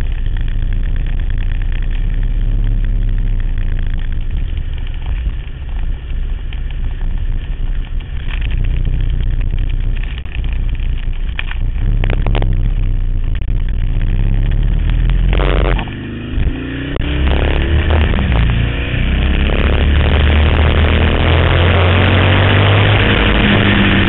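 Harley-Davidson XR1200 race bike's air-cooled V-twin, heard from a camera mounted on the bike: a low, uneven rumble while rolling slowly, then about two-thirds of the way through it revs up through the gears and runs loud and steady at speed.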